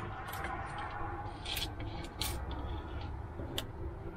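Tape measure being handled against a cabinet drawer and its pull: a few short scrapes and clicks over a low steady rumble.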